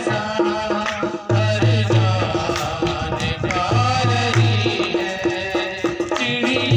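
Instrumental passage of a Hindi Christian devotional song, with hand drums keeping a steady beat under melodic instruments.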